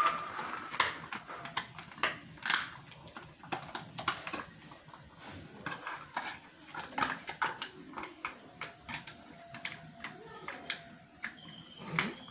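Rottweiler chewing and crunching mutton bones: irregular sharp cracks and crunches, several a second at times.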